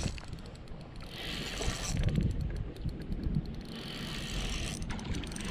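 Spinning reel being cranked in short spells, a fine rapid clicking, under wind noise on the microphone.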